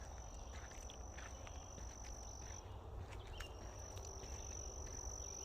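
An insect calling with a steady, high-pitched continuous trill. It breaks off about two and a half seconds in and starts again about a second later. Faint scattered ticks and a low rumble lie underneath.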